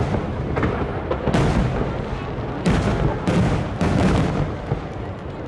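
Aerial fireworks shells bursting: four loud booms, about a second and a half in, near the middle, then twice more in quick succession, each with a rolling, echoing tail over a steady rumble of the display.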